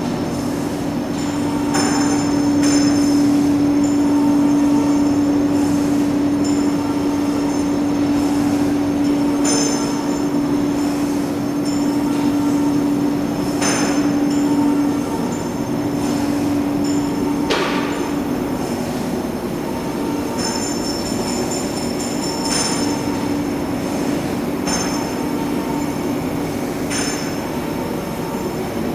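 Steel tube-drawing line running: a steady machine hum with a held low tone, high metallic squealing that comes and goes, and sharp clanks every few seconds.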